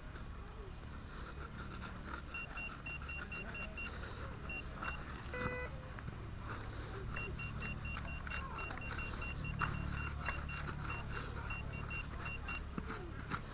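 Metal detector beeping: runs of short, high electronic beeps at about four or five a second, and one brief lower tone about five seconds in. Under them run a steady low rumble and small scuffing ticks.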